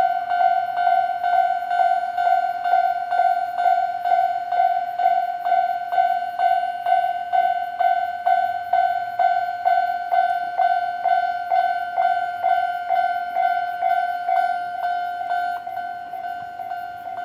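Japanese railway level-crossing warning bell ringing: a steady high-pitched ding struck a little over twice a second, the signal that a train is approaching. It gets a little quieter near the end.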